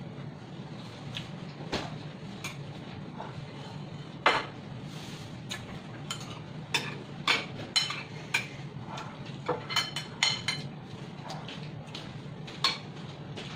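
Metal chopsticks and a spoon clinking and scraping against a glass bowl. Scattered sharp clinks with a brief ring come more often from about four seconds in, over a low steady hum.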